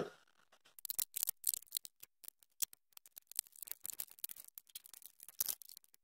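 Irregular light clicks and taps from handling a disassembled dishwasher door and its parts.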